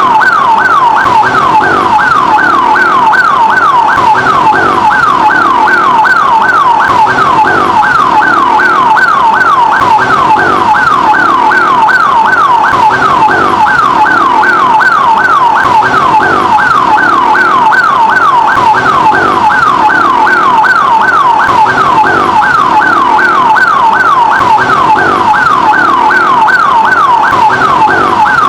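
Electronic ambulance siren in its fast yelp mode, its pitch sweeping up and down about three times a second at a steady, unchanging loudness.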